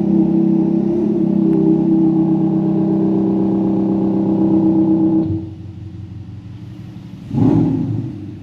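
Audi A6's 2-litre four-cylinder turbo diesel being revved, its note amplified through a sound booster: held steady at raised revs for about five seconds, dropping back to idle, then one short blip near the end.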